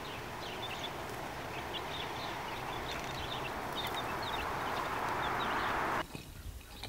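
Baby chicks peeping, many short high cheeps, over a steady rushing noise; both stop suddenly about six seconds in.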